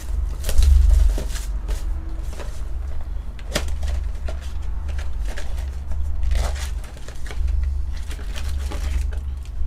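Hands opening a trading-card blaster box and its foil packs: scattered crinkles, tears and clicks of card and wrapper, over a low rumble of handling noise.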